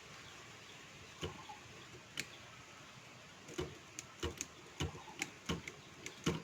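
Keys of a stripped-down Godrej manual typewriter being pressed, its key levers and typebars clicking. Two single clicks, then an irregular run of clicks about two a second from just past the middle.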